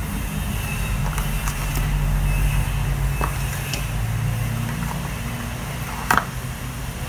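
Cardboard phone box and its inner tray being handled: a few light taps and one sharper knock about six seconds in, over a steady low hum.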